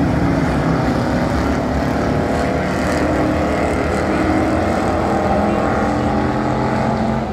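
Several thunder stock dirt-track race cars driving round the oval, their engines running together in a steady, loud, overlapping drone of many engine tones.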